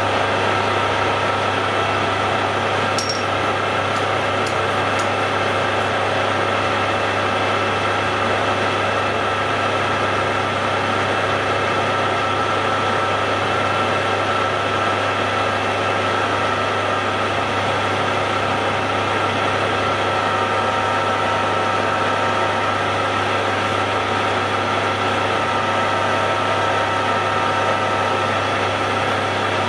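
Hare and Forbes AL335 metal lathe running steadily under power, its motor humming low with a constant gear whine over it.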